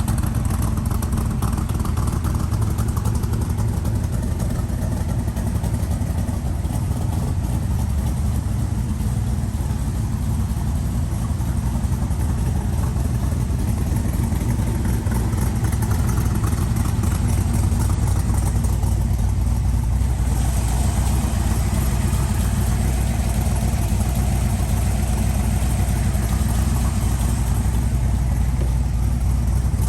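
Cobra kit car's engine running steadily at a low, even note.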